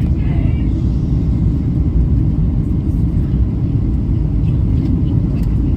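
Steady low rumble of cabin noise inside a Boeing 737-700 airliner, its engines and airflow heard through the fuselage.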